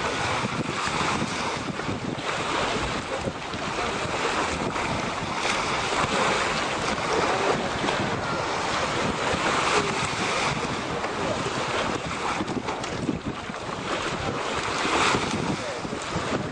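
Steady wind buffeting the microphone, over the wash of shallow sea water.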